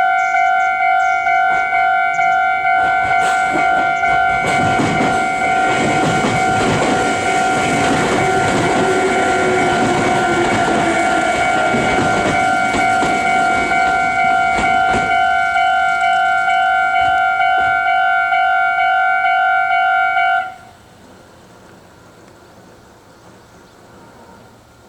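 Japanese level-crossing warning bell ringing with repeated electronic dings while a Meitetsu 3500-series electric train passes, its wheels clacking over the rail joints for several seconds. The bell cuts off suddenly about twenty seconds in.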